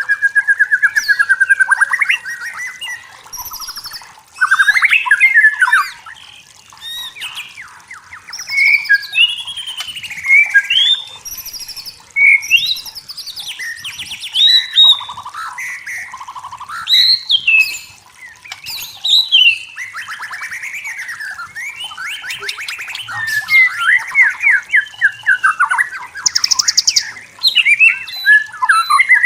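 White-rumped shama singing a long, varied song: phrase after phrase of clear whistles, rising and falling glides and rapid trills, with short pauses between loud bursts.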